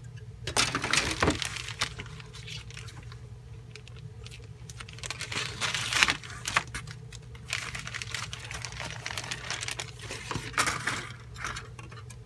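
Plastic bag crinkling in three spells as the kit's plastic sprues are handled, over a steady low electrical hum.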